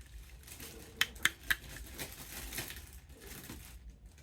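Hands handling a plastic action-figure toy and its packaging: three sharp clicks about a second in, a quarter-second apart, over light rustling.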